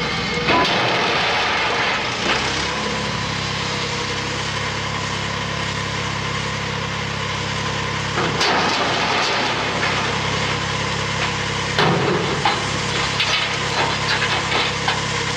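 Crane engine running steadily, with sharp metal knocks and clanks about eight seconds in, again about twelve seconds in, and a run of them near the end.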